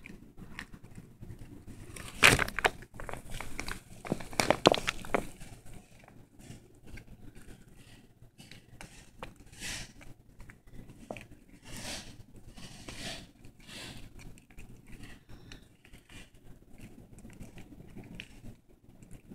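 Praying mantis chewing through a Dubia roach's shell: irregular crunching and crackling, with louder clusters of crunches about two seconds in and again around four to five seconds, then softer scattered crackles.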